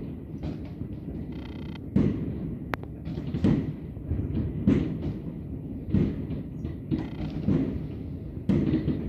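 Many fireworks going off across a city, heard as a constant low rumble of distant bangs. Sharper explosions break through about once a second or so, the loudest about two and five seconds in.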